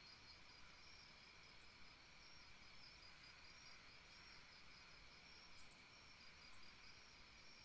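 Near silence with faint, steady chirring of insects over low hiss, and a couple of faint high ticks about five and a half seconds in.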